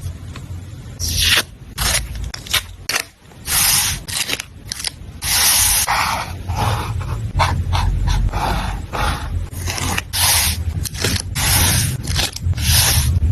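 Paper and stationery being handled for a journal layout: a run of irregular short scratchy rustles and scrapes, starting about a second in.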